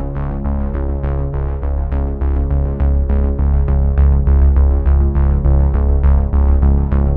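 Background electronic synthesizer music with a steady beat and a strong bass line.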